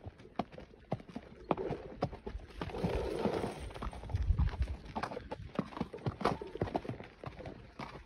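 Hooves of a walking saddle horse and of cattle just ahead on a rocky gravel trail: irregular clip-clop of hooves striking stone and dirt, with a brief rushing noise about three seconds in.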